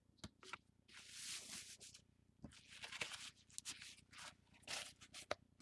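Faint, intermittent rustling and scraping with a few small clicks: a crumpled paper towel handled on a board and a plastic card scraped across it to clean off shaving cream.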